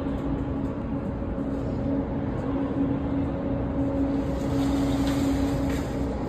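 A machine running with a steady hum, with some light rattling a little over halfway through.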